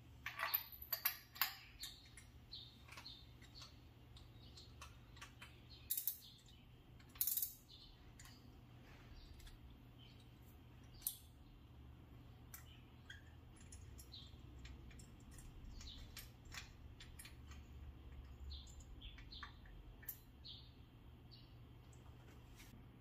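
Light clicks and taps of hand tools and small parts being handled, with a cluster in the first second or so and sharper knocks about six, seven and eleven seconds in, over a low steady hum.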